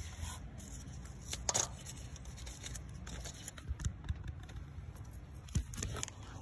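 Ribbed rubber accessory drive belt being worked off the engine's pulleys by a gloved hand: soft rubbing and scraping with a few short clicks, the sharpest about one and a half seconds in.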